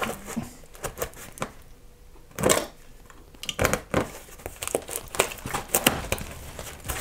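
Utility knife slitting the packing tape along the seam of a large cardboard box: irregular crackles and scrapes of tape and cardboard, with a longer, louder rasp about two and a half seconds in.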